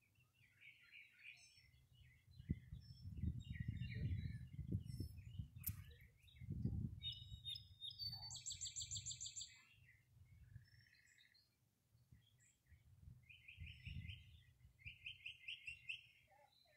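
Small birds chirping and trilling, with a loud rapid high trill about eight seconds in and more quick trills near the end. Underneath runs a low, uneven rumble with soft thumps, loudest in the first half.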